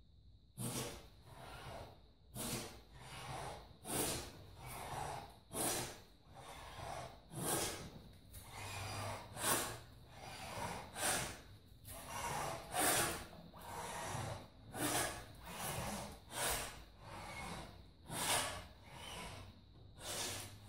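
Small Veritas router plane cutting a bolt channel in hardwood by hand: a steady run of short scraping, swishing cutting strokes, about one a second, each one a pass of the blade lifting a shaving.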